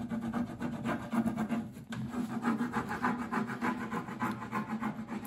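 A hand rubbing briskly back and forth over the plastic backing sheet of a rub-on transfer laid on a tin sap bucket, burnishing the image onto the metal: a quick run of short scratchy rubbing strokes.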